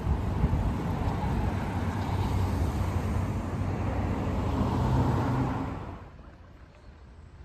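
Street traffic: a motor vehicle's engine running close by, a dense low rumble that drops away abruptly about six seconds in.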